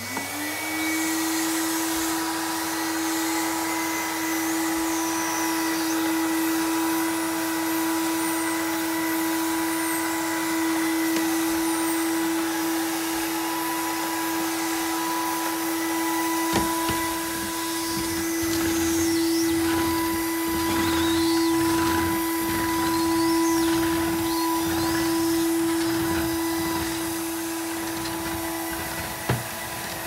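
PYE BV6 vacuum cleaner switched on, its motor spinning up within a second to a steady hum and then running continuously. From about halfway, the floor brush knocks and rubs as it is pushed over a rug and wooden floor.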